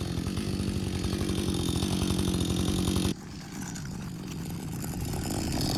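Chainsaw engine running at high revs, then dropping sharply in level about three seconds in and building slowly again.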